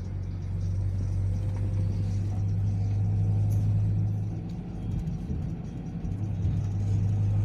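Engine and road rumble heard from inside a moving minibus: a steady low drone that eases for a moment around the middle, then comes back up.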